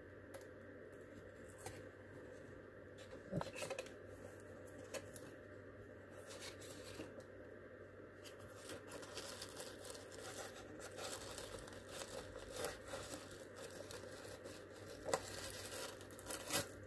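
Tissue paper crinkling and rustling as it is pulled out of a small paper-covered card box, with scattered clicks and taps of card and paper being handled. The crinkling becomes dense and continuous about halfway through, with a few sharper crackles near the end.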